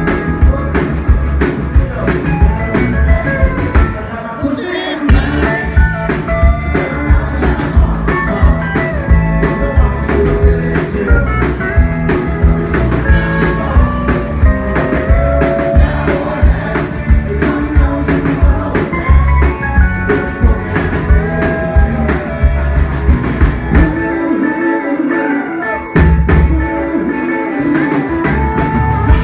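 Live country band playing a song loudly, with electric guitar, drums and singing. The bass and drums drop back briefly about four seconds in and again near the end.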